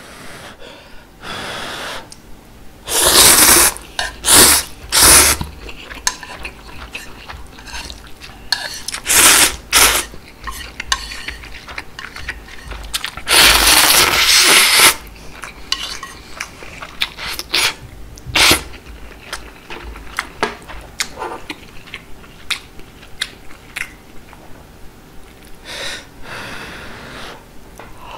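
Close-miked slurping of ramen noodles and seaweed broth from a spoon, several loud slurps with the longest about halfway through, and soft chewing and small clicks of chopsticks and spoons against the bowl in between.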